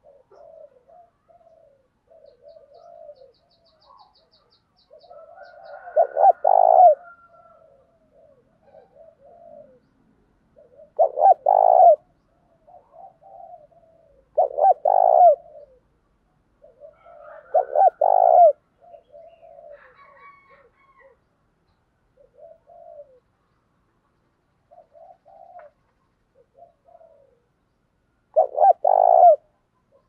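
Spotted dove cooing repeatedly. About five loud coo phrases come a few seconds apart, with softer short coos between them.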